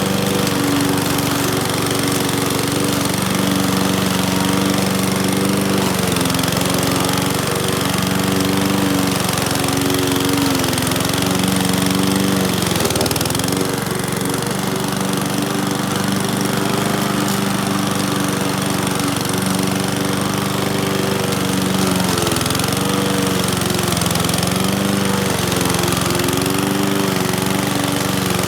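Powersmart gas push lawn mower engine running steadily while cutting tall grass, its pitch sagging and recovering several times as the thick grass loads the engine.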